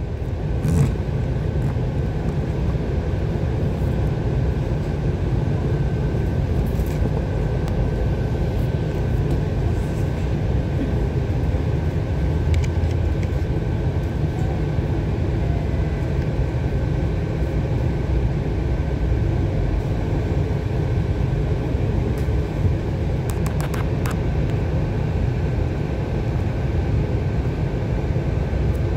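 Steady low rumble inside a double-decker bus standing in traffic, with a faint steady hum above it and a few faint ticks.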